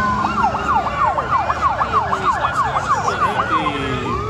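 Emergency vehicle siren in a fast yelp, its pitch sweeping up and down about three or four times a second, then going back to a slow rising wail near the end.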